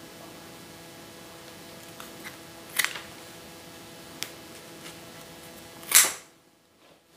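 Florist's scissors snipping through a dahlia stem about six seconds in, one sharp loud snip. Before it, a few lighter clicks as stems are handled and pushed into the moss, over a faint steady room hum.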